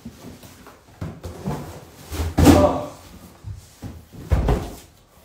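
Cardboard product boxes being handled and set down on a table: three dull thumps and knocks, the loudest about halfway through, with rustling of packaging between them.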